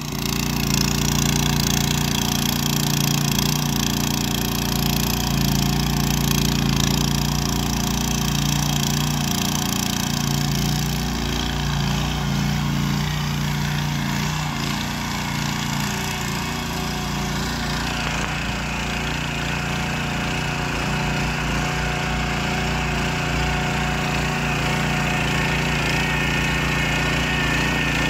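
Ruris 751KS walk-behind tiller (motocultivator) with eight tines, its small engine running steadily under load as the tines churn through the soil.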